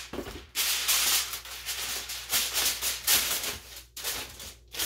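Aluminum foil crinkling in a run of irregular scrunches as it is pressed and folded around a metal cookie sheet to line it.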